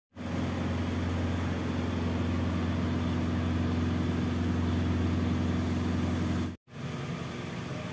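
Steady low machine hum, like a motor or fan running, that cuts off abruptly about six and a half seconds in and is followed by a fainter hum.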